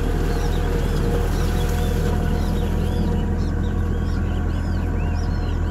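A vehicle engine running steadily with a low drone, and many birds chirping over it in short rising-and-falling calls, several a second.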